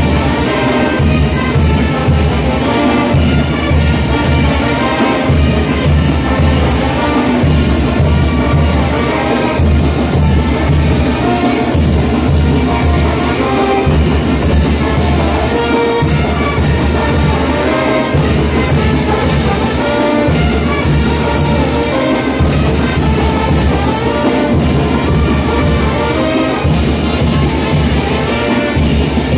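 Mexican brass band playing a chinelo dance tune: trumpets and trombones over a bass drum keeping a steady beat.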